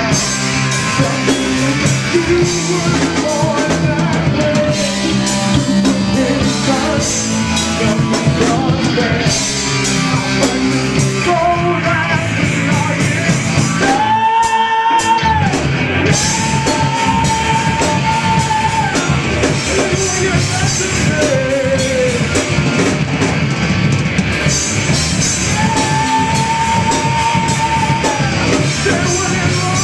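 Live rock band playing: electric guitars, a drum kit and a lead singer holding long sung notes. About 14 seconds in, the band stops for about a second while the voice holds a note, then comes back in.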